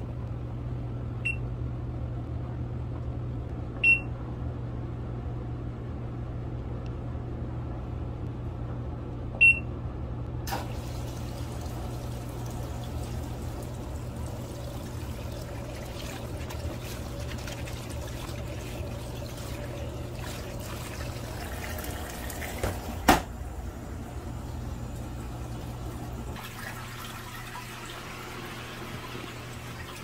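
Portable top-loading washing machine: three short control-panel beeps as buttons are pressed, then, from about ten seconds in, water pouring into the tub as it fills, over a steady low hum.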